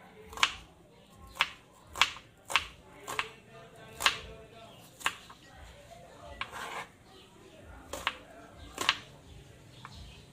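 Kitchen knife cutting a red onion and knocking on a wooden cutting board: about nine sharp, irregular chops, with a pause of a few seconds in the middle.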